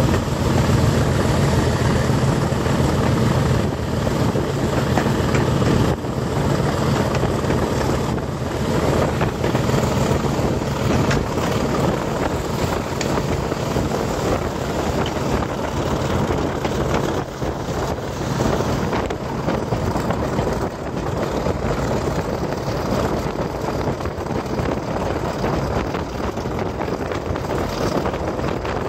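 English Electric Class 40 diesel locomotive running along the line, its 16-cylinder turbocharged engine droning steadily, with heavy wind buffeting the microphone at the cab window. The engine's drone is strongest for the first few seconds, then eases back under the wind.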